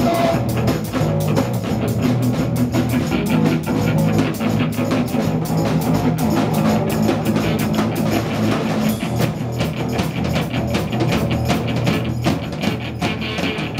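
A live rock band playing loudly: electric guitar over a steady bass line and a drum kit beating a continuous rhythm.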